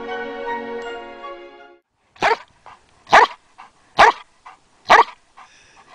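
Background music fades out, then a dog barks four times at an even pace, a little under a second apart.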